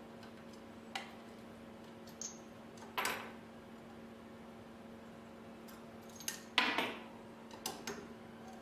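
Scattered metallic clicks and clinks of a hex key turning and working loose the screws of a CNC router's spindle mount, the loudest cluster about two-thirds of the way through. A steady low hum runs underneath.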